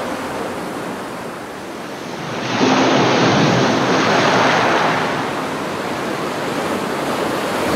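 Ocean waves rushing, with a wave swelling and breaking about two and a half seconds in, then washing back over the next few seconds.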